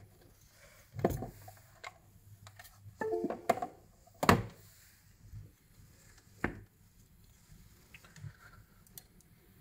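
Handling noise on an electronics workbench: scattered knocks and clicks as small devices and a cable are picked up and set down. There is a short rattling cluster about three seconds in, and the loudest knock comes just after four seconds.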